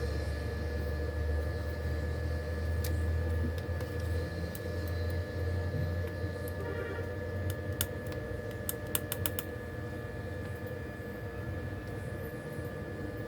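Small sharp clicks and taps of repair tools on a phone being taken apart, a few scattered and a quick run of them about nine seconds in, over a steady low hum.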